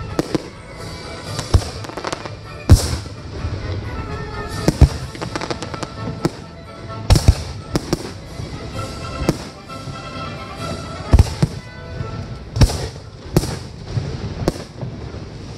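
Aerial firework shells bursting in a professional display: a dozen or more sharp booms at irregular intervals, some coming in quick pairs.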